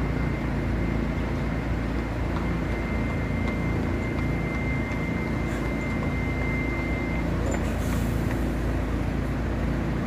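Heavy truck engine idling, a steady low hum. A thin high whine runs over it and stops about seven seconds in.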